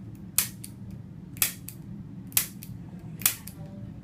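Four sharp mechanical clicks about a second apart, each followed closely by a fainter click.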